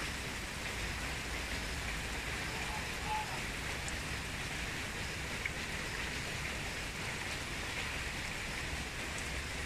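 Steady rain falling on the surface of a pond, an even hiss of drops on water.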